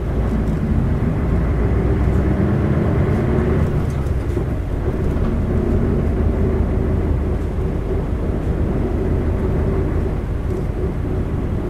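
Isuzu LV city bus's 8PE1-N V8 diesel running under way, heard from inside the cabin. A steady engine drone that eases off a little about four seconds in, then carries on steadily.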